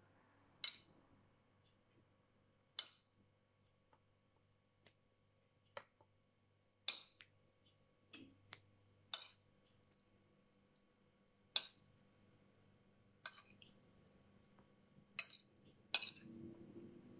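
A metal spoon clinking against a plate and a baking dish as food is served: about a dozen short, sharp clinks at irregular intervals.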